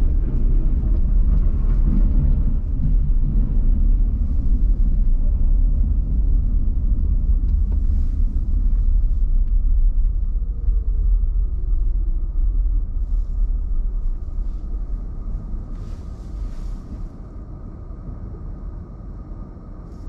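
A car driving on snowy city streets: a steady low rumble from the road and engine that dies down over the second half as the car eases off, with a faint falling tone about halfway through.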